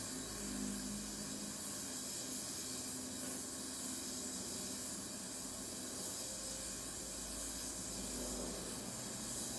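Gas torch flame hissing steadily while a steel seat lug is brazed onto a chromoly bicycle frame.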